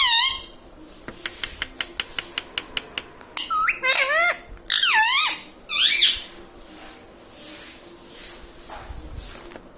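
Indian ringneck parakeet giving short, squeaky high calls that bend up and down in pitch: one at the start and three in quick succession around the middle. Between them comes a quick run of about a dozen sharp clicks.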